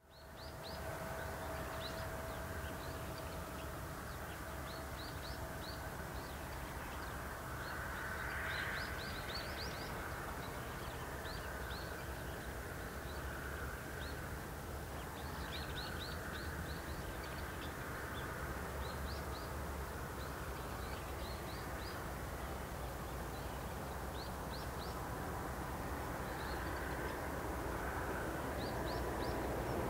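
Small birds chirping in quick clusters over a steady low outdoor rumble. Near the end the rumble slowly swells as the approaching Airbus A380's four jet engines draw closer on landing approach.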